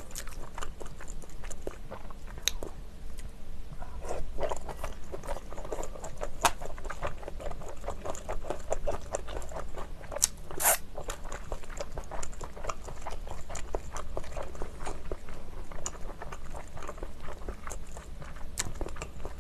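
Close-miked chewing and wet mouth sounds of a person eating noodle soup with glass noodles and shellfish, a run of small irregular clicks and smacks with a couple of louder ones about ten seconds in.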